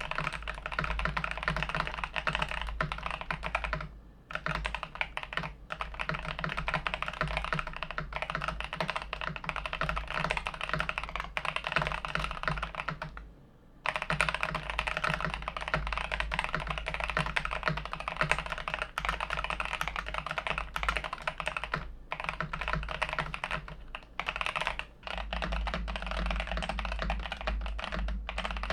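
Fast typing on an Ikki68 mechanical keyboard with lubed BobaU4T tactile switches, aluminum plate and PBT keycaps: a dense, continuous clatter of keystrokes. It breaks off briefly about 4 s in and for about a second around 13 s in.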